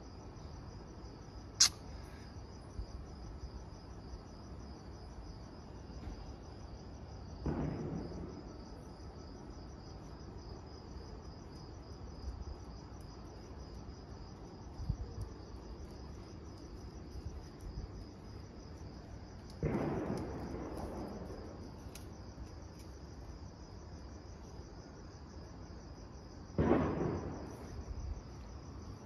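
Crickets chirping steadily in a high, fast-pulsing trill. Three short rushes of noise stand out, about a quarter of the way in, two-thirds in and near the end, each fading over about a second, with a sharp click near the start.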